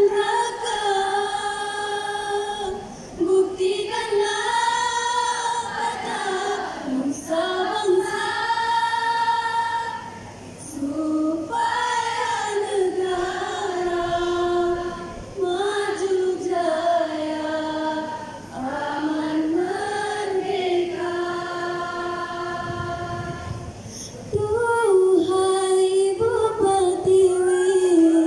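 Women's choir singing a patriotic song in held notes, in phrases of a few seconds with short pauses for breath between them. It grows louder near the end.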